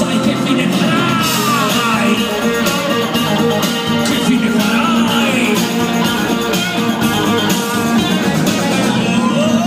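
Live concert recording of a rock band playing, with guitar to the fore.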